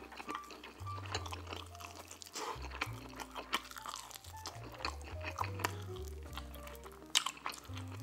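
Close-up chewing and biting of a buffalo chicken wing: wet crunches and mouth clicks as the meat is torn off the bone, the sharpest bite about seven seconds in. Background music with a bass line plays underneath.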